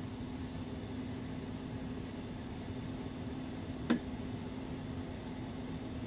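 Litex Whitestar ceiling fan running steadily, its motor giving a constant low hum over the air noise of the blades. About four seconds in there is a single sharp click as its light kit is switched on.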